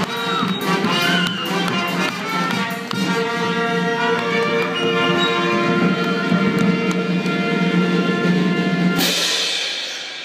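Brass band with drums playing a lively tune with a steady beat, stopping about nine seconds in on a final hit that rings away.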